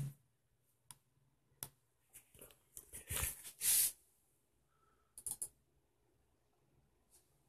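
Scattered sharp clicks and knocks, a louder burst of rubbing and rustling about three seconds in, and a quick triple click a little after five seconds: handling noise from a handheld camera being moved over the desk.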